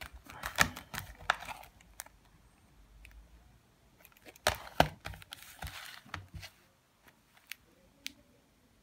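Cellophane shrink-wrap on a plastic CD jewel case crinkling as fingers handle and turn the case, with sharp clicks of the plastic. The busiest stretches come at the start and again about four and a half seconds in.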